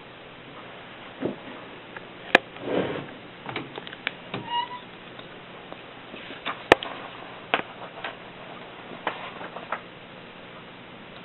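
Continental manual typewriter being worked slowly: separate key strikes and sharp mechanical clacks at uneven spacing, two of them louder than the rest, one about two seconds in and one near the middle.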